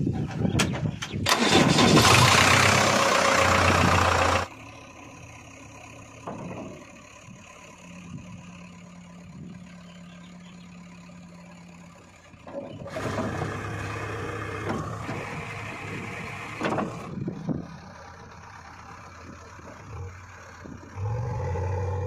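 JCB 3DX backhoe loader's diesel engine cranking and starting, loud for the first few seconds before cutting off suddenly, then running. It runs quieter at idle for a while, louder again for a few seconds in the middle, and steady near the end.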